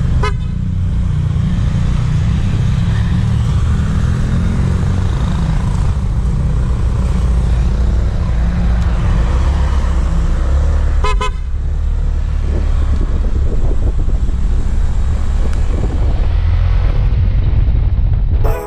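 Honda ADV 150 scooter's single-cylinder engine running as it rides along, under a steady heavy low rumble. A short horn beep sounds just after the start and another about eleven seconds in.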